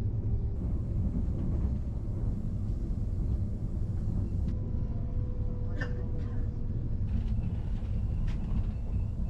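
A Renfe Class 449 electric multiple unit cruising, heard from inside the carriage: a steady low rumble of running on the track, with a faint steady tone over it for a few seconds and a brief sharp sound about six seconds in.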